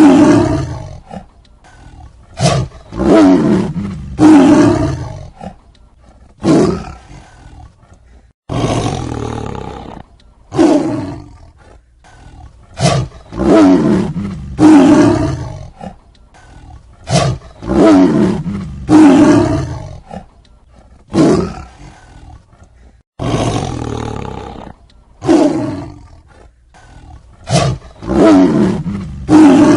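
Tiger roaring and growling over and over, a loud rough call every second or two, each fading off. The sound changes abruptly at two edit points, about eight seconds in and again near 23 seconds.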